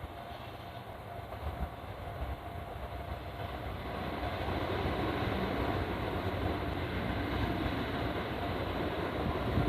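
Keihan Main Line electric train running on the track at the level crossing, its running noise and rail rumble growing steadily louder as it comes closer.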